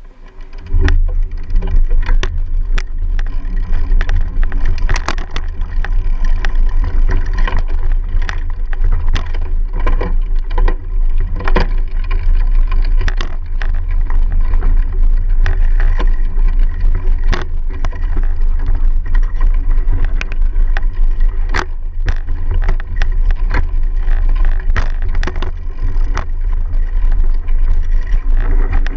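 Mountain bike ridden over rough dirt, heard from a GoPro mounted on its frame: heavy wind rumble on the microphone with frequent knocks and rattles as the bike jolts over bumps, starting about a second in.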